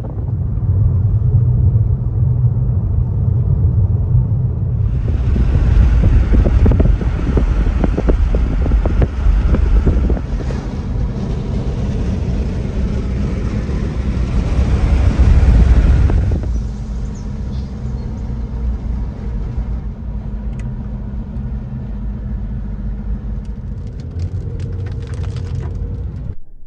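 Car driving, heard from inside the cabin: a steady low engine and road rumble with rushing wind noise. The wind rush grows much louder about five seconds in and falls back about sixteen seconds in, and a few faint clicks come near the end.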